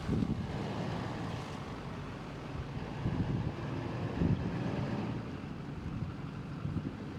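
Wind buffeting the microphone, an irregular low rumble with gusty swells.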